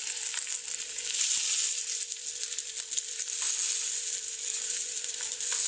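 Pieces of floured trout frying in hot corn oil in an open pan: a steady crackling sizzle throughout. A faint steady hum lies underneath.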